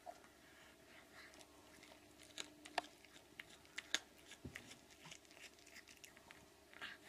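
Cat chewing on a mouse it has killed: faint, with scattered small crunches and two sharper cracks about three and four seconds in.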